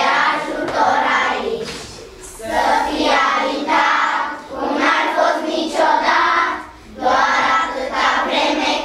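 A class of young children singing together as a group, in sung phrases with brief breaks between them about two seconds in and again near seven seconds.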